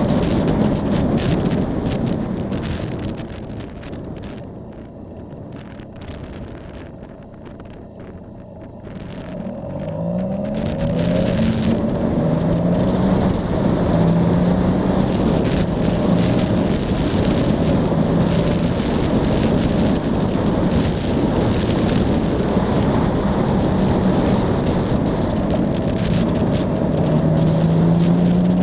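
Yamaha Tracer motorcycle engine under way, with a steady rush of noise. The engine note and rush fade as the bike slows about three seconds in. Around ten seconds the engine revs up as it accelerates, then holds a steady cruising note.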